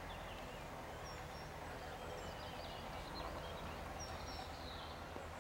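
Outdoor ambience: small birds chirping in short, high calls scattered throughout, over a faint steady low hum.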